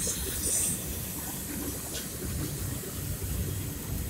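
Open-top freight wagons of a goods train rolling past, a steady low rumble with irregular clattering of wheels on the rails. A brief high hiss sounds about half a second in.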